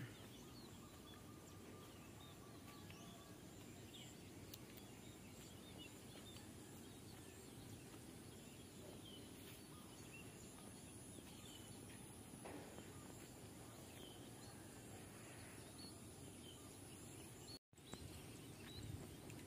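Near silence: faint open-air ambience with a few scattered, faint bird chirps.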